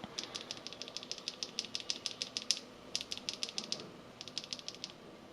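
Akko CS Silver linear mechanical keyboard switches being typed on fast: quick runs of light key clacks in three bursts, the first and longest lasting about two and a half seconds.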